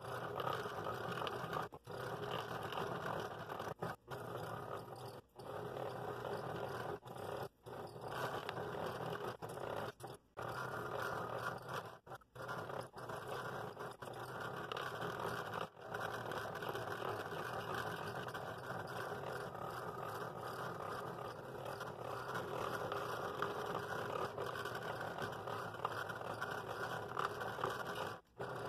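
Scroll saw running steadily, its blade cutting through a thick layered hardwood blank that includes a layer of very hard bloodwood. The sound cuts out briefly several times, mostly in the first half.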